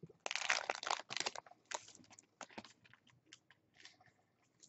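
Foil trading-card pack wrapper crinkling and tearing as it is opened, dense for the first two seconds, then thinning to sparse light clicks and rustles as the cards are slid out.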